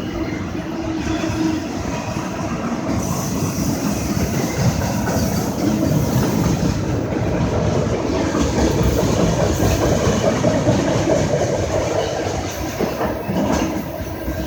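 A slow-moving CSX boxcar freight train rolling past, its cars running steadily over the rails, a little louder through the middle.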